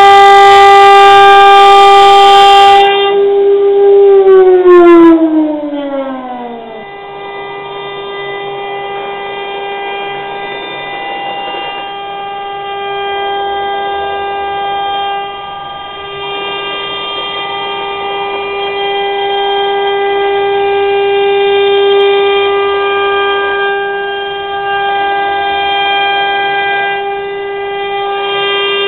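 CNC router spindle running with a steady, high whine. About four seconds in, a second tone glides down in pitch and dies away while the steady whine carries on.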